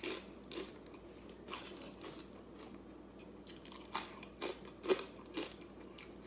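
Crunchy tortilla chips being chewed close to the microphone: irregular crunches, the loudest about four to five seconds in.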